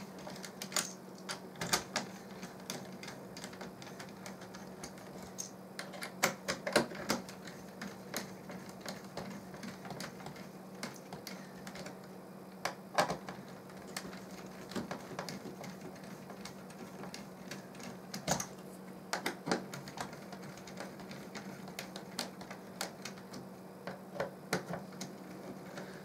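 A small screwdriver working screws into a plastic fitting on a carbon tube: irregular clicks and taps of metal on plastic, in small clusters a few seconds apart, over a low steady hum.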